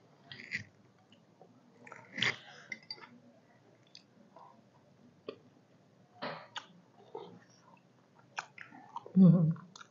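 People chewing and smacking on mouthfuls of chicken soup, with scattered short sharp clicks. A brief low voiced sound comes near the end.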